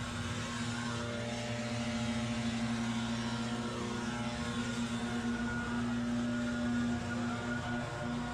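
A small engine running steadily at high speed, with a constant droning tone.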